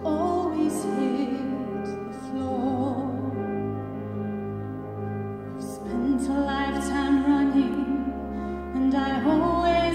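A female solo singer in a slow, sustained ballad with vibrato, in several phrases, over a full orchestra playing held chords with a deep bass underneath.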